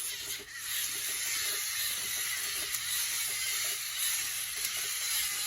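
Lego Mindstorms Alpha Rex robot walking under its own program, its electric motors and plastic gear trains running with a steady hissing whir.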